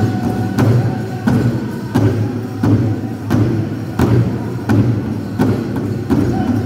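Large powwow drum beaten by a drum group in a steady, even beat of about three strokes every two seconds.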